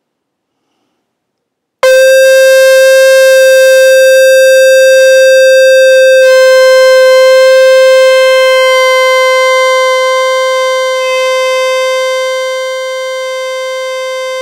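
A shofar blown in one long, steady blast that starts abruptly about two seconds in and holds a single pitch, loud at first and easing off somewhat in its later seconds.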